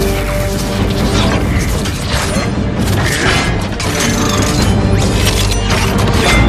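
Film sound design of a giant robot's metal parts shifting and locking together: a dense run of mechanical clanks, clicks and whirring ratchets, with low booms, over a loud orchestral score.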